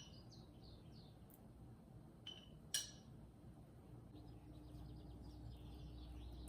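Two light clinks with a brief ring, close together about two and a half seconds in. Faint bird chirps come near the start and again in the last few seconds, over a quiet background.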